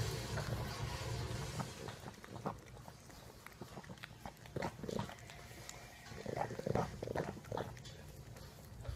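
Pug snuffling and licking at close range, a run of short wet and nasal sounds from its flat muzzle pressed to a man's face, loudest a few times past the middle, with a low steady rumble in the first couple of seconds.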